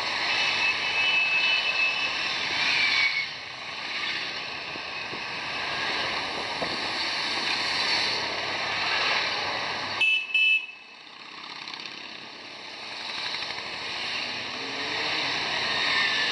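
Motorcycles riding past in a slow procession, engines running in a steady mixed rumble, with two short horn toots about ten seconds in.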